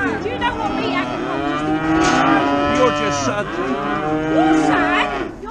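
Cattle mooing loudly, several long calls overlapping one another.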